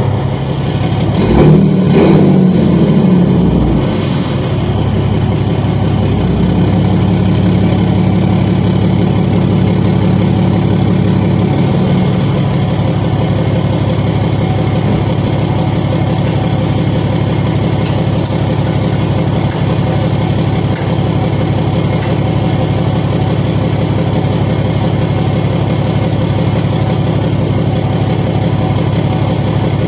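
Ram pickup's Cummins turbo-diesel engine idling steadily. In the first few seconds it is louder, with a couple of sharp knocks, before it settles back to an even idle.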